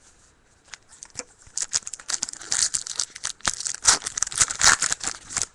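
A foil hockey card pack wrapper being torn open and crinkled, a dense crackling that builds about a second and a half in and is loudest near the end.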